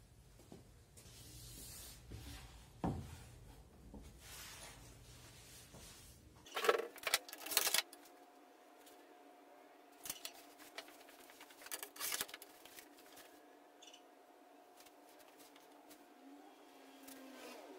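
An aluminium saw guide rail is set down and shifted into place on a solid wood tabletop: a cluster of loud knocks and rubbing about seven seconds in, then a few lighter clicks. A faint steady hum runs through the second half.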